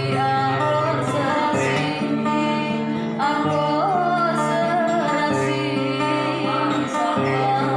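Regional Batanghari Sembilan folk song: a female singer's wavering melody over an acoustic guitar and steady held bass notes.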